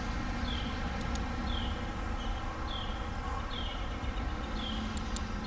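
Outdoor ambience: a small bird repeating a short falling chirp about once or twice a second over a steady low rumble, with a few faint sharp clicks from the headlamp's mode button being pressed.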